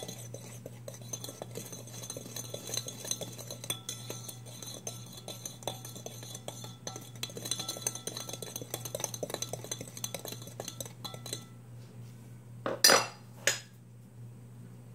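A utensil stirring dry flour mix in a plastic bowl, making rapid scraping and clinking against the bowl, which stops about eleven seconds in. Two sharp knocks follow near the end.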